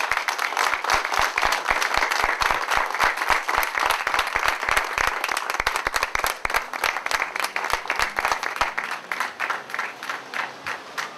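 Applause from a small crowd, hand claps dense at first and thinning out near the end.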